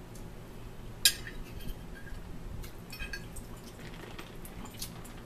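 Metal forks clinking and scraping on dinner plates: one sharp clink about a second in, then scattered lighter clinks.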